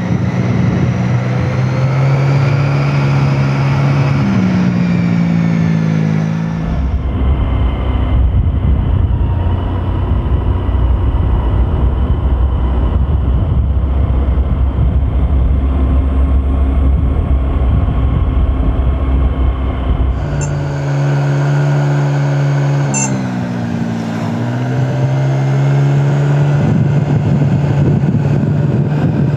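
A vehicle's engine running while driving along a road, its pitch rising and falling with the throttle. About seven seconds in, the engine note gives way to a steady low rumble, and it comes back a little after twenty seconds.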